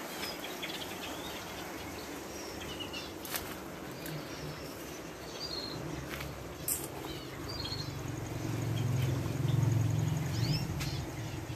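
Small ornamental aviary birds chirping in short, scattered calls over a steady background. A low hum builds up in the second half.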